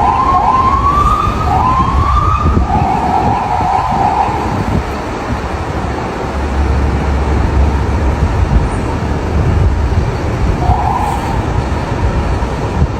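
Bus telolet horn playing a melody of short tone phrases, several of them rising, for the first few seconds, then one more brief toot near the end. A bus engine's low rumble and road noise run underneath.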